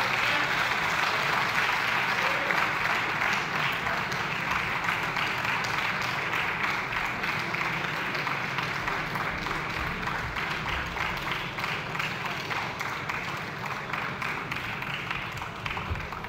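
Applause from a large gathering of people, many hands clapping in a dense patter that gradually dies down over the second half.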